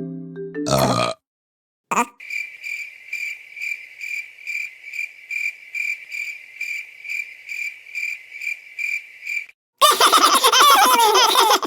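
Cartoon cricket-chirp sound effect: a steady high chirp pulsing about three times a second, of the kind used for an awkward pause. Near the end it stops and a high cartoon voice laughs loudly.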